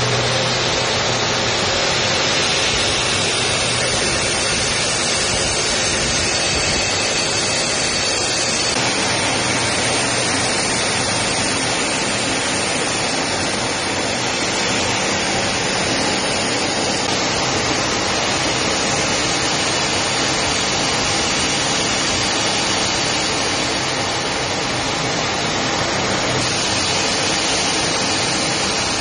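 Jet aircraft noise in flight: a steady, even rushing roar of engine and airflow that does not change.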